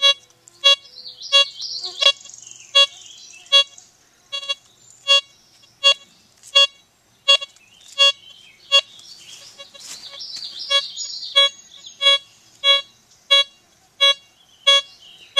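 Bliss Tool LTC64 metal detector giving a repeated short beep, about one every 0.7 seconds, as the coil swings back and forth over a buried coin. The beeps pause briefly near the middle. The target is a quarter buried 14 inches deep.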